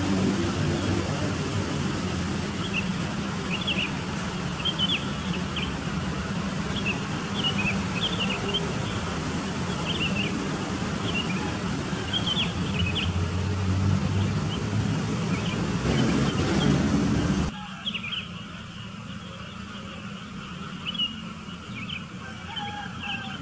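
Small birds chirping in short, repeated calls over a steady low rumble. About seventeen seconds in, the rumble cuts off abruptly, leaving the chirping over a much quieter background.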